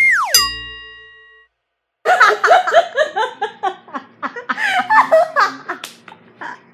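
A short falling pitch glide that ends in a brief ringing tone, then, after a moment of silence, a group of young women laughing hard together for several seconds.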